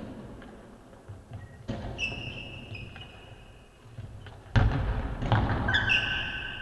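Dull, echoing thuds of a basketball and players' feet on a hardwood court, the loudest about halfway through, with long high sneaker squeaks on the floor around two seconds in and again near the end.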